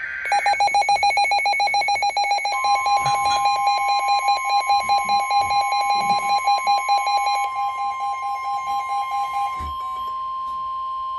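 NOAA Weather Radio alert: the tail of a scratchy SAME data burst, then a fast-pulsing alarm beep, joined about two and a half seconds in by the steady single-pitch warning alarm tone. The beeping stops near the end while the warning tone holds on.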